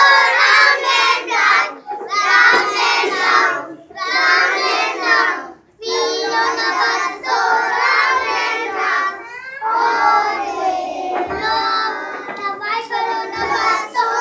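A group of young children singing a song together, in sung phrases broken by short pauses for breath.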